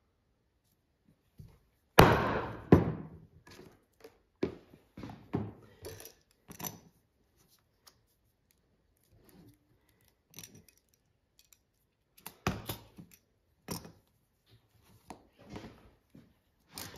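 Bench work trimming off the excess of a leather belt liner: a loud sharp knock about two seconds in, then a run of scattered knocks, clicks and scraping of tools and leather.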